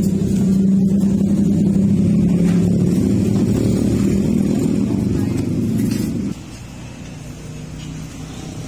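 A motor vehicle's engine running steadily close by, a loud low hum that drops off abruptly about six seconds in, leaving a fainter steady hum.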